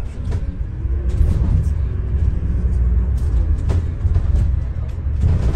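Double-decker bus in motion: a steady low engine and road rumble with frequent knocks and rattles from the bodywork.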